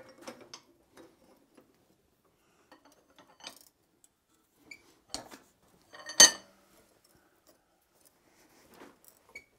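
Blacksmith's steel tongs clinking against a hot steel leg clamped in a vise as the leg is twisted straight. A handful of light, scattered metal clinks, with one louder clank about six seconds in.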